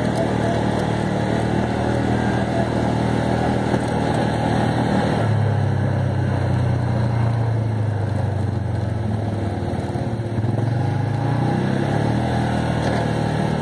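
Off-road vehicle engine running at a steady trail speed over a dirt track, with rumbling tyre and chassis noise. The engine note strengthens about five seconds in, sinks slightly, dips briefly around ten seconds in, then picks up again.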